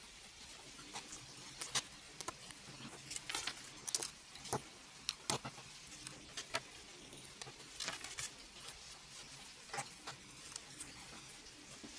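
Plastic LEGO bricks clicking and rattling as they are handled and pressed together: irregular sharp clicks, one or two a second, some in quick little clusters.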